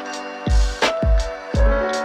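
Background music with a steady beat: deep kick-drum thumps and sharp snare hits over sustained melodic instrument notes.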